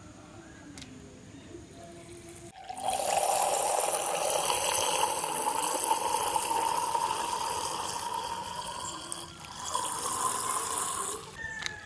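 Chilled milk poured from a plastic milk pouch into a glass tumbler: a steady pour starting a few seconds in whose pitch slowly rises as the glass fills, a brief stop, then a second shorter pour near the end.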